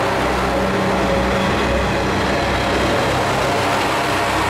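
A Kanto Railway diesel railcar pulling slowly out past the platform. Its engine runs steadily under the rumble of the cars rolling by.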